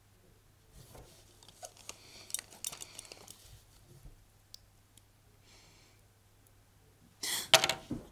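Soft rustling and small clicks of a person moving at a table over a low steady hum, then near the end a sudden loud scrape and knock as she gets up quickly from her chair.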